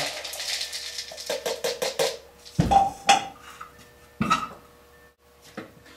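Crushed dry cat food poured from a small cup into a tub, a quick run of small rattles and ticks for about two seconds. Then come three louder knocks as the containers are handled and set down.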